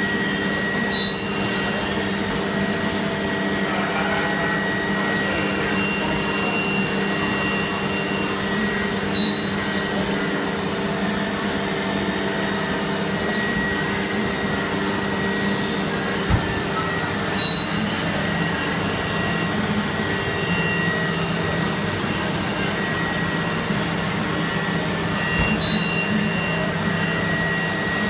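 Tornos Deco 2000/10 CNC sliding head lathe running an automatic machining cycle with coolant spraying: a steady mechanical hum with a high whine that rises, holds for a few seconds and falls again, repeating about every eight seconds, each repeat marked by a brief knock.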